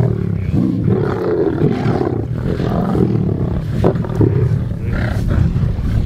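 Lions growling at one another as they feed together on a carcass, a continuous low rough rumble.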